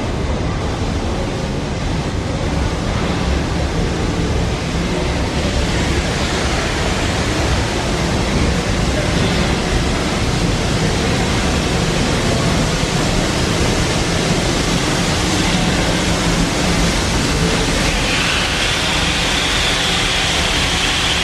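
Steam locomotive rolling slowly in with its cylinder cocks open, hissing steam steadily over a low rumble from the train. A higher, brighter hiss joins about eighteen seconds in.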